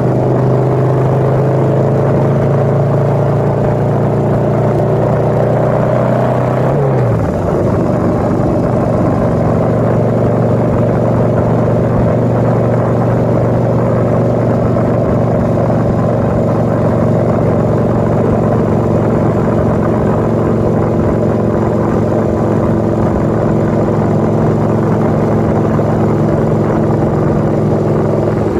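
Motorcycle engine running steadily under way, with wind rumbling on the microphone. The engine note drops about seven seconds in, then holds steady.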